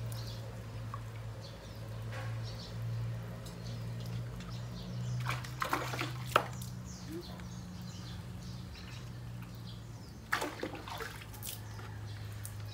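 Water splashing and dripping as a rooster is washed by hand over a basin, with sharper splashes about halfway through and again near the end. A steady low hum runs underneath.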